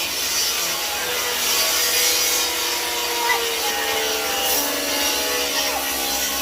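Continuous scraping on wood, with steady tones under it that slowly fall in pitch.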